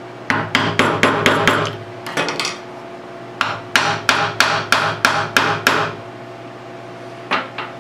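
Small ball-peen hammer tapping a copper-pipe ferrule flat to crimp it onto paracord, the ferrule resting on a wooden block. A quick run of about six taps, a short pause, then about nine evenly spaced taps, and two lighter taps near the end.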